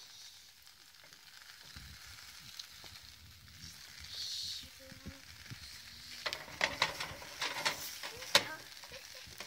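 Pancake batter sizzling in a hot frying pan, a faint steady hiss. From about six seconds in come a run of sharp clicks and scrapes, the loudest near the end.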